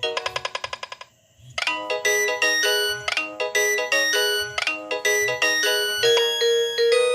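Nokia 6085 mobile phone playing polyphonic ringtones. A fast run of rapidly repeated notes stops just under a second in, and after a short pause a melodic tune with a steady beat starts.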